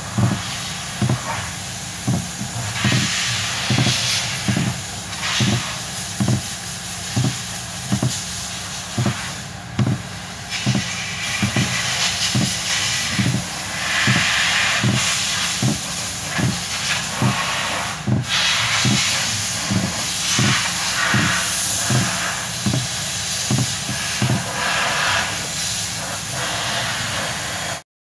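Steering column bushing bolt on a 2019 Toyota Rush being rocked back and forth with a wrench, giving a short low knock or creak about once a second over a steady hiss. The already-tight bolt grating in its dry bushing is the cause of the steering's clicking ('grek-grek') when it is turned left and right.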